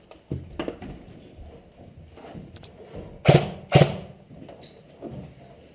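Light knocks and scuffs, then two loud, sharp thuds about half a second apart a little over three seconds in.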